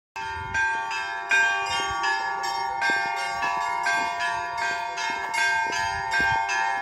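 Church bells ringing: small bells struck in quick succession over the sustained ring of larger bells, with a fresh strike about every third of a second.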